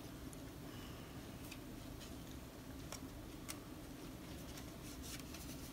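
Faint, irregular clicks and light taps of sticker sheets and planner supplies being handled, over a low steady hum.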